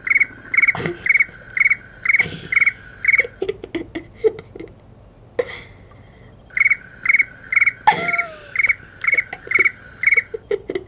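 Cricket-like electronic chirping from a smartphone held against a guinea pig's head: evenly spaced trilled chirps about two a second, in two runs of about eight, with a pause of about three seconds between them.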